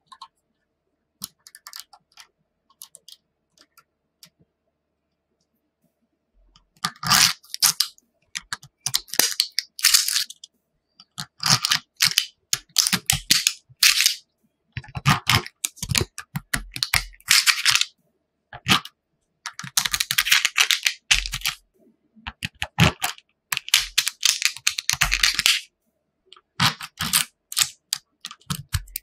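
Small neodymium magnet balls clicking and crackling against each other as hands press and shift them. There are a few scattered clicks at first. From about seven seconds in come repeated bursts of dense, crunchy clatter, each a second or so long, as plastic cards are worked between the layers of balls.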